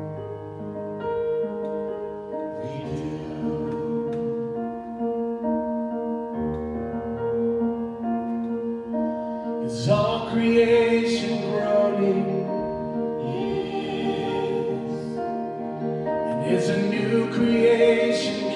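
Worship band performing a song live: a man singing lead in call-and-response with the other singers, over keyboard and guitars.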